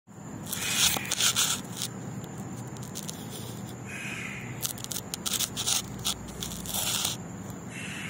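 Irregular scraping, crackling and clicking in an Alexandrine parakeet's wire cage as the bird moves about on the bars and seed-strewn floor, in two spells: one about a second in and a longer one from about four and a half to seven seconds in.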